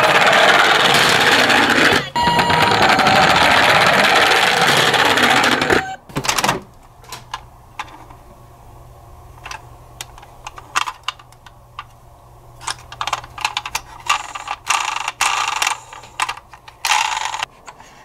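Toy ambulance's electronic siren sound effect playing loudly, cutting off about six seconds in. After it come scattered clicks and short rustles of a plastic toy ambulance being handled and lifted out of a cardboard box.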